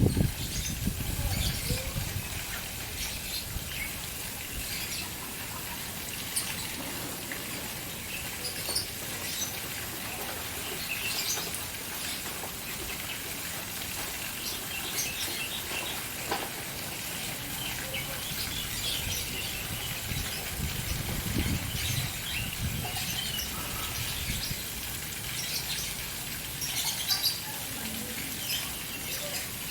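Fountain water splashing steadily, with caged birds chirping over it again and again. A low rumble dies away in the first two seconds.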